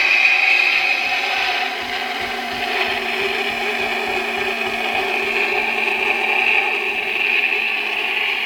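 Recorded Avro Vulcan jet engine sound, distorted and compressed, played through a model's small built-in speaker. It is a steady howl with no bass, dipping slightly about two seconds in.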